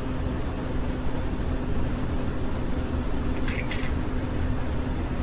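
Steady low rumble with a faint hum, and two quick high budgerigar chirps about three and a half seconds in.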